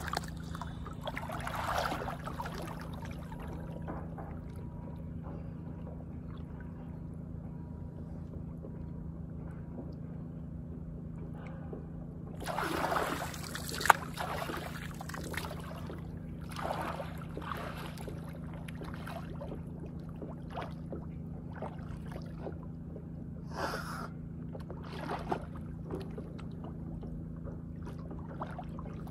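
Water splashing and sloshing now and then, the biggest splash about halfway through with a sharp knock in it, over a steady low hum.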